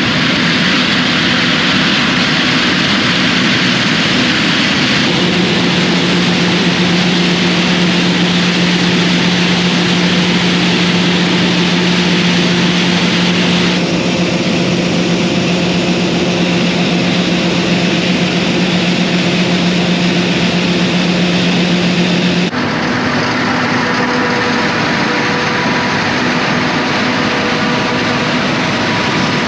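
Large farm machinery running steadily: a loud, even roar with a steady hum whose pitch and strength change abruptly a few times.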